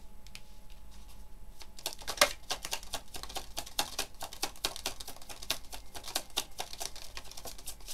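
A deck of tarot cards being shuffled by hand: a fast, dense run of papery clicks that picks up about two seconds in and goes on for several seconds.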